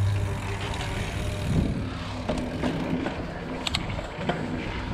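Mountain bike rolling along an asphalt street: steady tyre and wind noise with a low engine hum from a motor vehicle, and a few sharp clicks from the bike, one clearest near the end.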